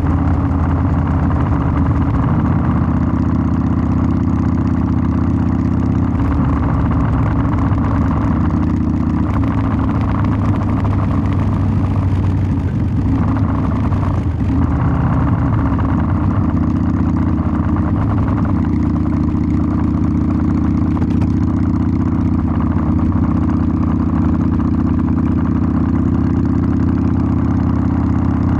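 Harley-Davidson Sportster 1200's V-twin engine running steadily through its exhaust, with its pitch holding nearly constant.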